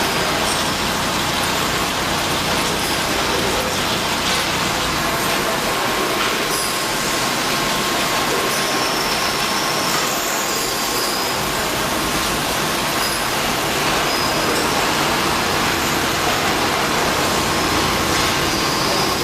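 Steady mechanical running noise, with a faint steady whine that comes in about four seconds in.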